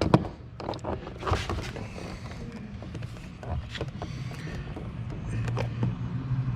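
Scattered clicks and scrapes of a pocket screwdriver prying at plastic door-panel trim on a car door, with a low steady hum coming up in the second half.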